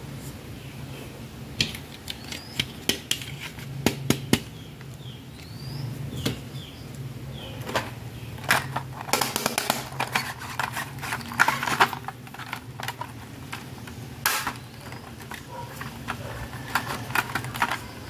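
Hard plastic toy pieces clicking and tapping as a lollipop-shaped toy makeup compact is handled and its lid opened, in irregular sharp clacks that come thickest around the middle.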